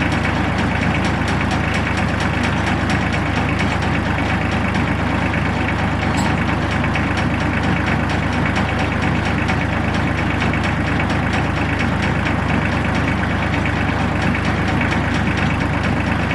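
Farm tractor engine running steadily at an even pitch and level, with a dense, regular beat of firing pulses.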